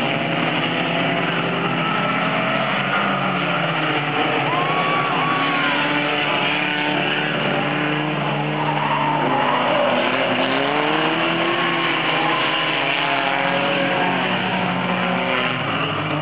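Several Pony Stock race cars' engines running together, their pitches rising and falling as the cars accelerate and lift. About four to five seconds in, a short high squeal, likely tires.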